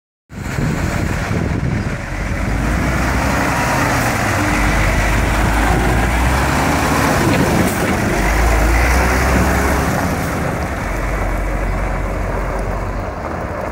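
Diesel engine of a MAN 26.280 6x4 tipper truck running under load as the truck pulls away and drives off, a loud, steady rumble that eases off slightly near the end as it moves away.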